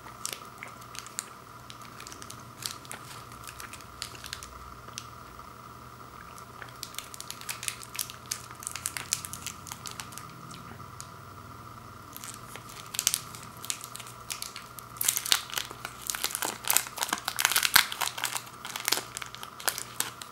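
Fun-size Twix wrapper, a metallised plastic candy wrapper, crinkling and tearing as it is pulled open and peeled off the bars. Scattered crackles at first, growing denser and loudest over the last few seconds.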